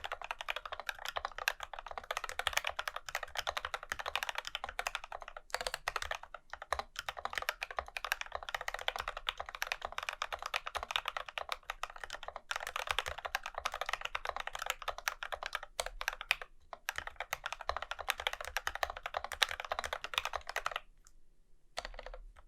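Steady, fast typing on an acrylic-cased Alice-layout mechanical keyboard with lubed Gateron Black Ink linear switches and SA keycaps, the keystrokes running together with a couple of brief pauses. The typing stops about a second before the end, with a few last keystrokes after.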